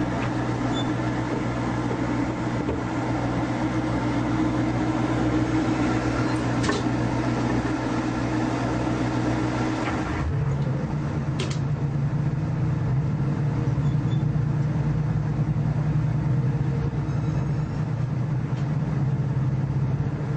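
Tour boat's engine running with a steady drone that changes its note about halfway through, as the engine speed changes.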